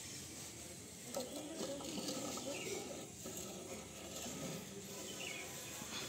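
Quiet scraping and a few faint clicks as a perforated metal dB killer baffle is worked out of a Yamaha RX 135's chrome silencer by hand. The engine is not running.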